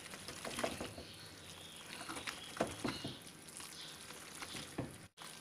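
Spaghetti being tossed and stirred with silicone-tipped tongs in a nonstick frying pan: faint wet stirring with a few light, scattered clicks of the tongs against the pan.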